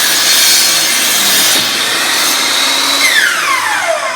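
Compound miter (chop) saw running at full speed with a steady high whine as its blade cuts through a cherry board. About three seconds in the motor is switched off and the whine falls steadily as the blade spins down.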